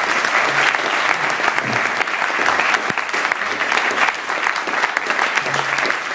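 Audience applauding steadily, with faint low notes of background music underneath.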